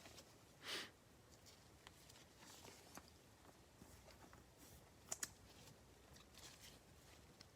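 Near silence with faint handling of trading cards: a soft swish of a card sliding under a second in and two light clicks about five seconds in.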